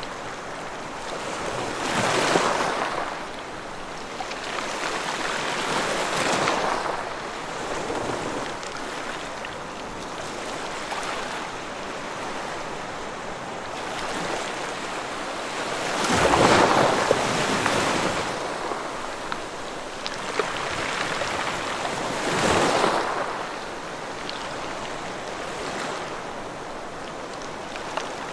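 Ocean surf: waves breaking and washing ashore over a steady hiss, swelling and fading in four louder surges, the strongest about halfway through.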